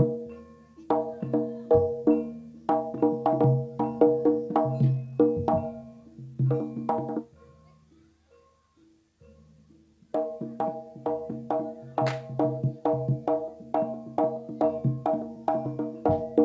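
Javanese jaranan gamelan accompaniment: struck pitched percussion and drum play a quick, steady rhythm. It breaks off for about three seconds a little past the middle, then starts up again.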